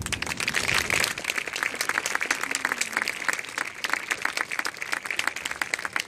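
Audience applauding, a dense patter of hand claps that starts suddenly and thins out near the end.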